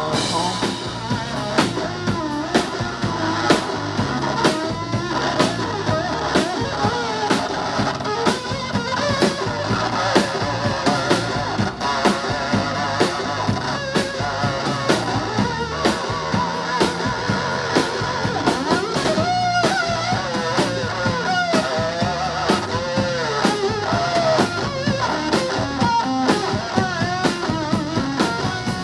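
Live rock band playing an instrumental passage: electric guitars over a drum kit keeping a steady beat.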